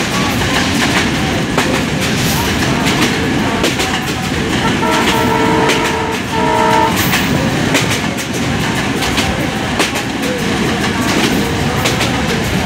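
Passenger train running at speed, heard from an open coach doorway: wheels clattering over the rail joints amid steady rushing noise. About five seconds in, a train horn sounds two blasts, a longer one then a shorter one.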